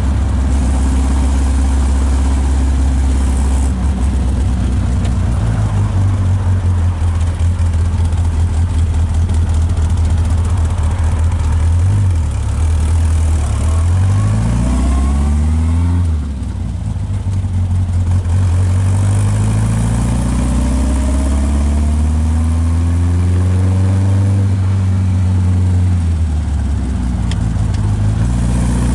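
1951 Morgan Plus 4's engine running while the car is driven, its note climbing and falling back several times as the car accelerates and eases off.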